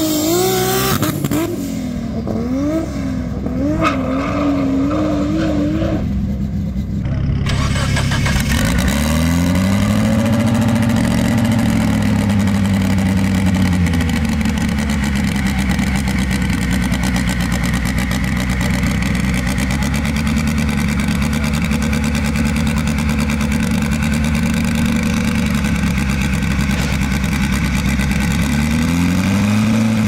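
A car engine revving up and down in quick swells for the first several seconds. Then a turbocharged car engine running: its revs rise and are held for a few seconds, drop back to a steady idle, and rise again near the end.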